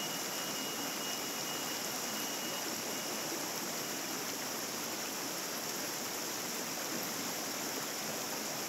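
Small rocky mountain stream flowing and splashing over stones: a steady, even rush of water.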